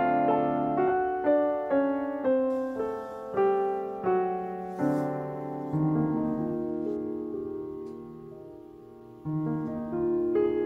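Slow, gentle solo piano music: a simple melody of single struck notes that ring and fade. The notes thin out and die away, and a new chord sounds about nine seconds in.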